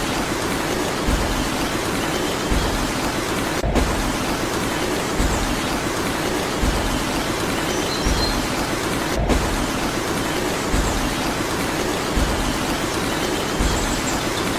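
Steady, rain-like hiss with a low thump about every second and a half.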